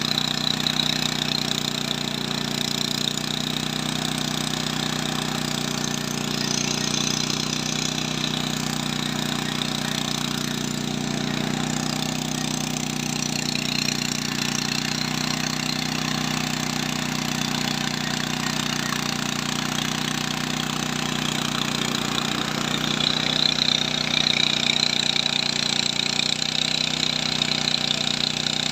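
DJI agricultural spraying drone in flight, its rotors giving a steady, even hum that grows a little louder and hissier near the end.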